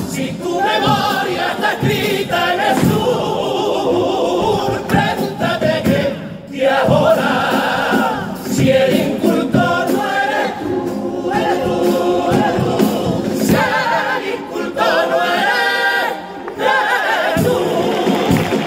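Male chorus of a Cádiz carnival comparsa singing in harmony, live through the stage microphones, with brief pauses between phrases.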